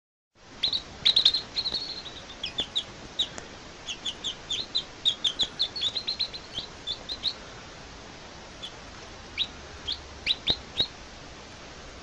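Baby chicks peeping: quick, short, high cheeps coming thick and fast for the first seven seconds or so, then only a few scattered ones, over a steady faint hiss.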